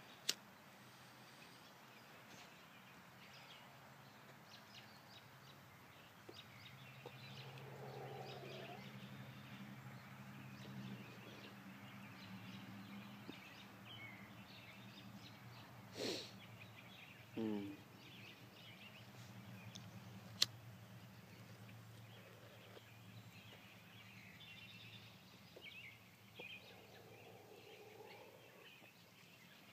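Faint woodland ambience: distant birds chirping over a low steady hum, with a couple of sharp clicks and a short louder burst about halfway through.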